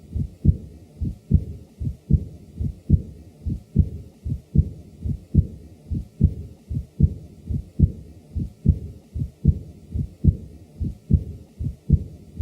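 Recorded heart sounds as heard through a stethoscope: a steady heartbeat of about 75 beats a minute, each beat a strong low thud with softer sounds following it.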